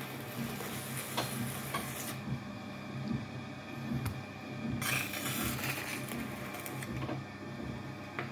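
Potter's wheel motor running with a steady hum. Twice a rushing hiss rises over it, each time for a second or two.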